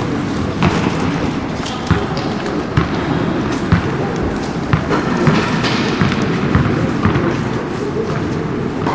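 Irregular knocks and thuds, about one a second, of tennis balls bouncing on an indoor carpet court, over a steady background noise of the tennis hall.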